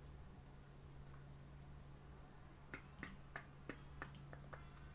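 Near silence with a faint steady hum, then a quick run of about seven faint computer mouse clicks in the second half.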